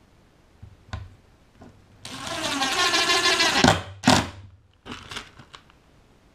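Cordless impact driver running a self-drilling #8 screw through a caster wheel's mounting plate into 3/4-inch plywood: a rapid hammering run of under two seconds, then a short final burst as the screw seats. A few handling clicks come before and after.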